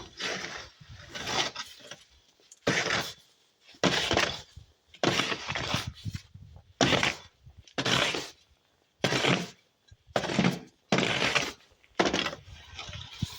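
Crunching in snow, about one crunch a second in an even rhythm, typical of footsteps in snow.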